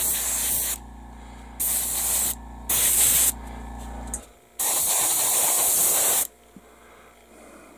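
Airbrush spraying primer in short bursts: four hisses of air and paint, the last the longest at about a second and a half. A steady low hum runs underneath and stops about four seconds in.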